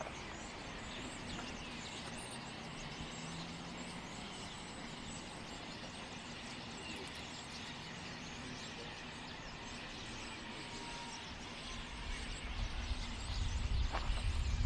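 Open-air outdoor ambience: a steady faint hiss, joined about twelve seconds in by a low rumble that grows louder and uneven.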